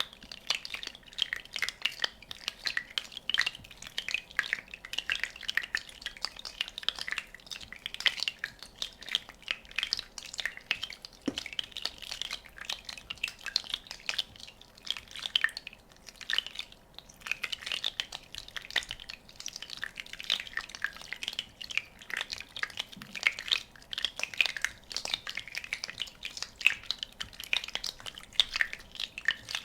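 Many small bubbles popping in quick, irregular succession: a dense, steady crackle with scattered louder pops.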